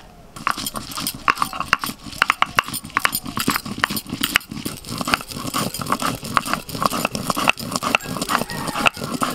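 Stone roller (noda) grinding dried red chillies on a flat grooved grinding stone (sil): rapid, repeated back-and-forth scraping and crunching strokes, starting about half a second in.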